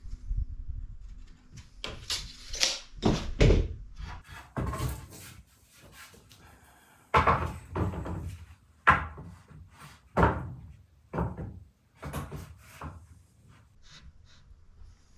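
Wooden boards being handled and set down on a wooden plank floor: a dozen or so hollow wooden knocks and clunks, irregularly spaced, with a quiet stretch around the middle.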